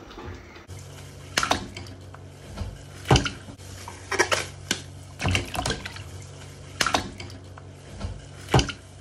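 A slimy whole catfish being rubbed and squeezed by hand in water over a stainless steel sink, washed with potash to strip its slime. Short wet squelches and splashes come about once a second from about a second in, over a low steady hum.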